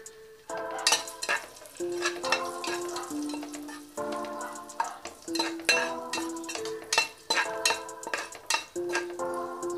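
Instrumental background music, a melody of held notes, over raisins frying in ghee while a steel spoon scrapes and stirs them in an aluminium pot, with repeated sharp clinks.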